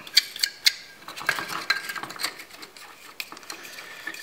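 Small metal parts clinking and clicking as a nut and washer are spun by hand onto a toggle switch's threaded shank, with light taps of the thin plywood panel being handled. The clicks are irregular and loudest in the first second.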